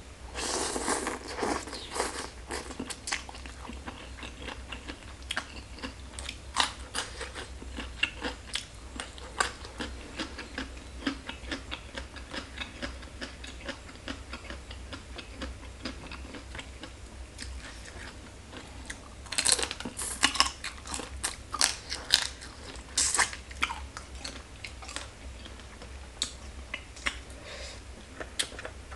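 Close-miked eating of spicy papaya salad with rice noodles and pickled crab: wet chewing and biting as a steady run of small mouth clicks. Louder clusters of bites come about a second in and again around twenty seconds in.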